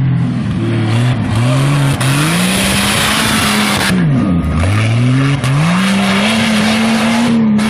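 Off-road racing buggy's engine revving hard under acceleration. The revs climb in steps, fall sharply once about four seconds in, then climb again and hold high. A steady hiss of spraying dirt and tyres on loose ground runs under it.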